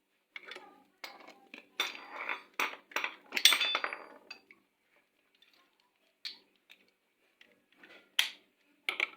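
Metal parts and hand tools clinking and clattering against each other during scooter CVT disassembly. A dense run of clinks in the first four seconds, one briefly ringing, then a few scattered clicks.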